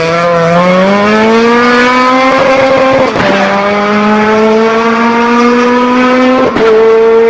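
High-revving vehicle engine accelerating hard, its pitch climbing steadily and dropping briefly at two upshifts, about three seconds in and near the end.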